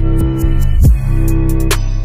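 Background music with a steady beat, a bass line and sustained tones.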